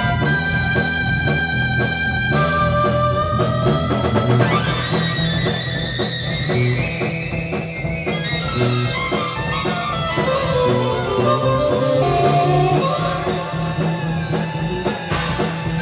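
Improvised rock jam from a live band: electric guitar playing sliding, bending lines over bass and drum kit. Held keyboard-like notes sustain for about the first two seconds before the guitar takes over.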